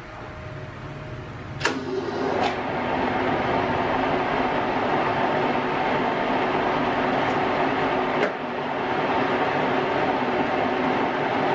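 Restored Wasino 550 lathe running its spindle at 550 rpm: two sharp clicks about two seconds in as it starts, then a quick rise to a steady hum and whine from the headstock gearing. Another click comes about eight seconds in, with a brief drop in level before the steady running resumes.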